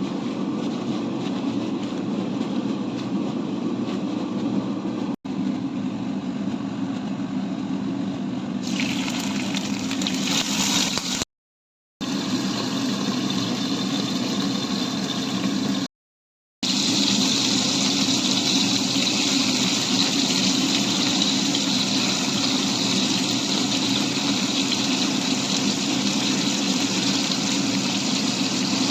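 Fish frying in hot oil: a steady sizzle over a constant low hum, with the sizzle much louder in the second half. The sound is broken by brief silent gaps at edit cuts, about 5, 11 and 16 seconds in.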